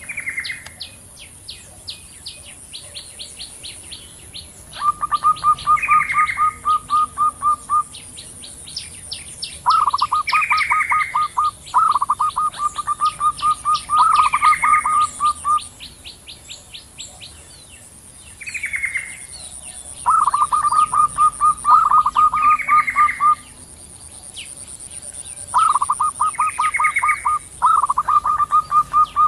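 Zebra doves (perkutut), female and male, calling back and forth. Runs of rapid staccato cooing notes a few seconds long come round every few seconds, with short falling higher notes and fast high chirping trains between them.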